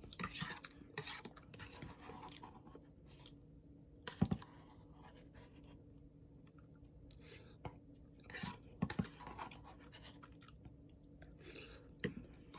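A person chewing and eating instant ramen noodles close to the microphone: soft wet mouth sounds with scattered short clicks, a few sharper ones standing out.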